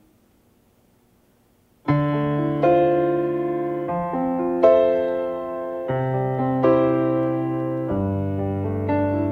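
Near silence, then about two seconds in a slow piano introduction begins: sustained chords that ring and fade, with a new chord every second or two.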